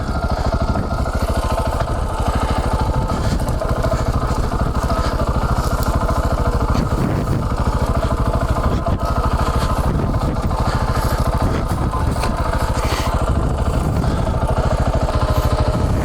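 KTM 690 Enduro R's single-cylinder LC4 engine running at low, steady revs, its separate firing pulses clearly heard.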